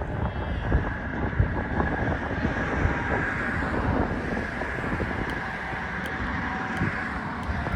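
Wind buffeting an outdoor microphone: an uneven low rumble over a steady hiss of open-air background noise.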